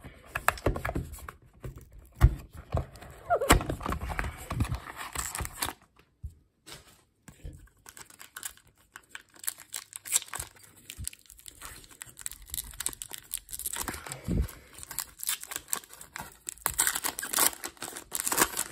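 Handling of a cardboard trading-card box, with taps and scrapes, then a clear plastic card-pack wrapper crinkling in the hands and being torn open near the end.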